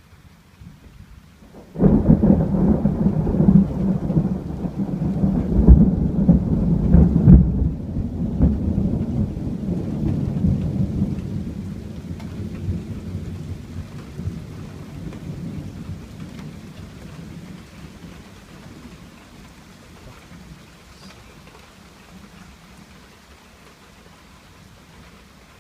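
A thunderclap breaks suddenly about two seconds in and rumbles loudly for several seconds, then slowly fades away over the next ten seconds or so. Steady rain falls throughout.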